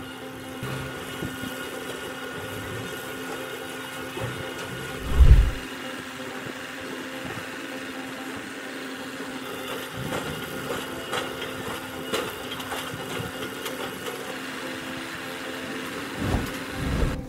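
Tractor-driven log debarking machine running steadily with a mechanical hum as it strips bark from a log. A heavy low thump comes about five seconds in, and a few more thumps near the end.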